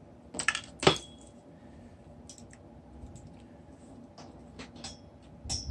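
Clinks and knocks of an all-metal cordless T-blade hair trimmer being set down on a desk and handled, two sharp knocks within the first second, then a few faint scattered clicks.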